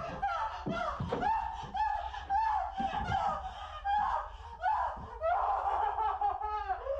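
A very high-pitched voice laughing in a continuous run of short snickers and giggles.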